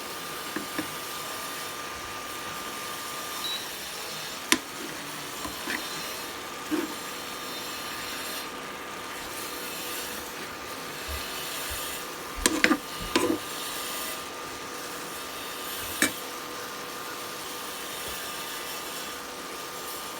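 Cooking in a pan: a steady hiss, with a utensil now and then scraping and knocking against the pan, a cluster of clanks a little past the middle.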